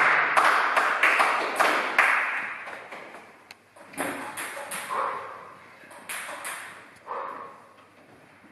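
Table tennis balls clicking: a quick run of sharp pings over the first couple of seconds, then single bounces about once a second, fading toward the end.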